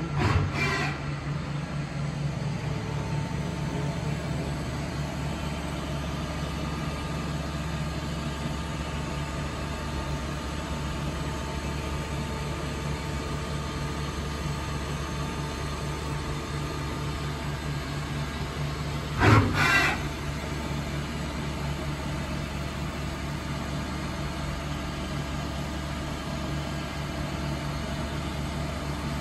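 Okuma MF-46VA vertical machining center running with a steady mechanical hum. A short loud double clunk stands out about two-thirds of the way through, and another brief loud sound right at the start.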